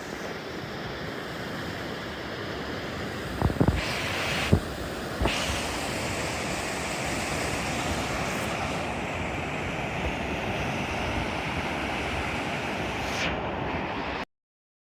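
River in flood rushing steadily, a continuous hiss of fast water, with a few short sharp knocks between about three and a half and five seconds in. The sound cuts off suddenly near the end.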